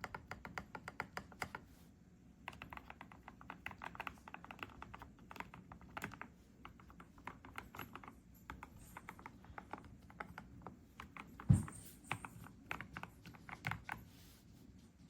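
Typing on an RK Royal Kludge S98 mechanical keyboard fitted with new switches and keycaps: fast runs of key clacks, a short pause after about a second and a half, and one single louder thump about two-thirds of the way through.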